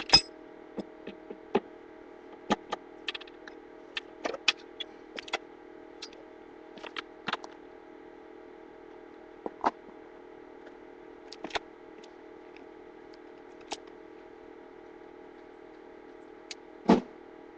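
Irregular clicks, taps and knocks of tools and parts being handled, with a louder knock at the start and another near the end, over a steady low hum.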